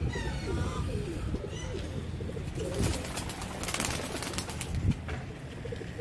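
Domestic pigeons cooing in a loft, repeated low calls, with a patch of rustling or wing movement around the middle.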